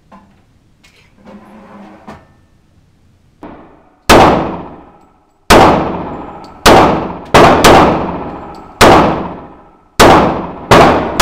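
Ruger P91DC pistol firing .40 S&W 180-grain rounds: eight shots at an uneven pace, two of them in quick succession, each report ringing on in the echo of an indoor range. Faint handling sounds come before the first shot, about four seconds in.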